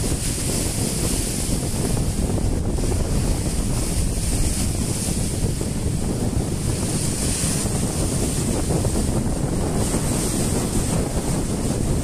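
Storm-driven waves on the Sea of Galilee breaking and washing over dark boulders on the shore, a steady surging hiss, with strong wind buffeting the microphone.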